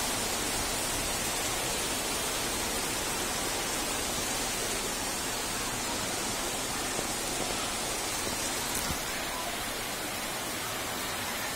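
Floodwater rushing down a flooded street: a steady, even rush of flowing water.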